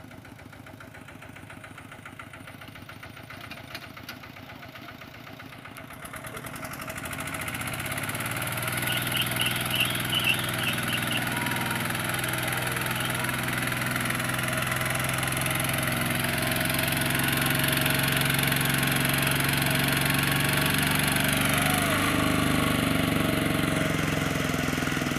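Single-cylinder diesel engine of a two-wheel walking tractor idling, then throttled up about six seconds in and running steadily at higher speed.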